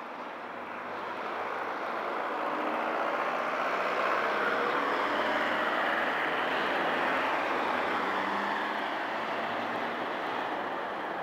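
Road traffic passing, a vehicle noise that swells to a peak about five seconds in and then slowly fades.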